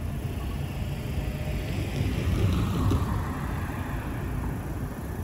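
A small kei car driving past close by, its tyre and road noise swelling to a peak about two to three seconds in and then fading, over a steady low street rumble.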